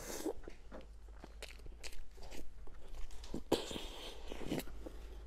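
Close-up mouth sounds of eating spoonfuls of frosting-covered layer cake: scattered wet smacks and chewing clicks, louder for about a second around three and a half seconds in.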